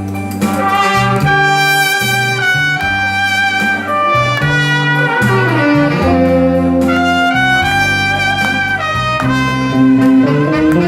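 Instrumental introduction of a song's backing track: a trumpet-like brass lead plays a slow melody of held notes over a bass line and accompaniment.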